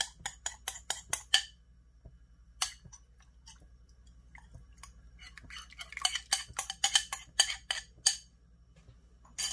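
A utensil clicking and scraping against a glass bowl as hot pot seasoning paste is scraped out into a pot of broth. A fast run of sharp clicks lasts about a second and a half, followed by a single click, then another fast run a few seconds later.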